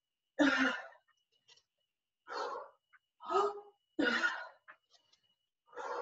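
A woman's forceful, audible breaths from exertion, about five sharp huffs roughly a second apart.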